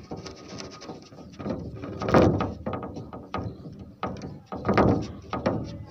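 A plastic syringe's rubber plunger seal grating in the barrel as the plunger is worked back and forth with the tip sealed by a thumb, drawing a vacuum that makes bubbles rise in the water inside. It comes as a series of rasping strokes, loudest about two and five seconds in.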